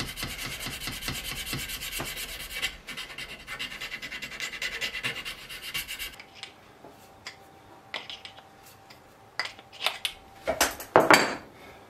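Hand file rasping across the Queen Ebony duck-call soundboard in a quick, steady run of strokes, smoothing the sawn face level with its jig; it stops about six seconds in. A few scattered knocks and clicks follow, the loudest near the end.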